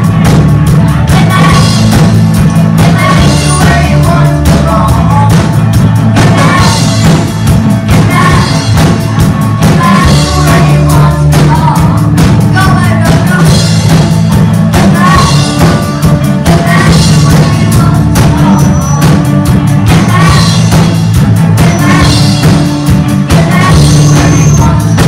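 Live rock band playing loud: a drum kit keeping a steady beat under electric guitar, bass and keyboard, with a lead singer's vocal on top.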